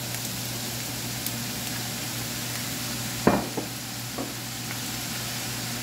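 Fried rice sizzling steadily in a hot stainless steel frying pan. About three seconds in there is a sharp knock, followed by a couple of lighter ones.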